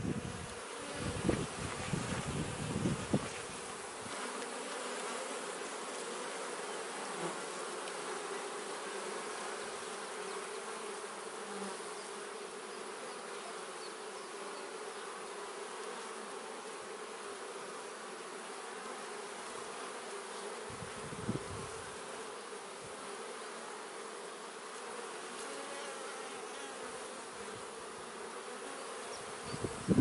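Honey bees buzzing at a hive entrance: the steady hum of many wings. There are a few brief low rumbles in the first three seconds and once again about 21 seconds in.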